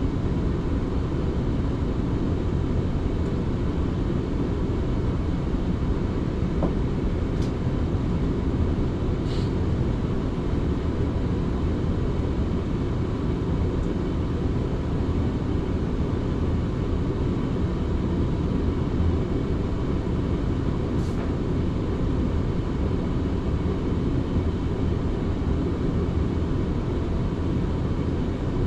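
Passenger train running at speed between stations, heard from inside the carriage: a steady rumble of wheels on the track, with a few faint brief high ticks.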